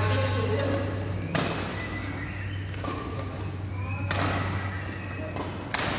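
Badminton rackets hitting a shuttlecock: three sharp smacks, each ringing briefly in the hall, over faint background voices and a steady low hum.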